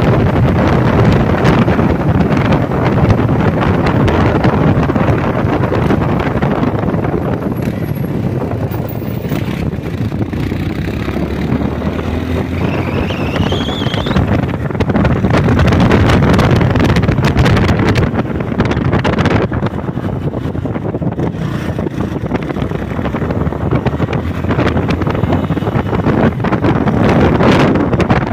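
Wind buffeting the microphone of a Yamaha Lander 250 motorcycle on the move, loud and unsteady, with road and engine noise underneath. A faint rising whine is heard about halfway through.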